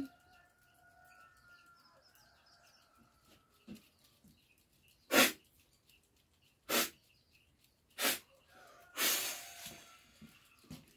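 A healer forcefully spraying liquid from his mouth during a ritual cleansing: three short, sharp sprays about a second and a half apart, then a longer hissing spray near the end.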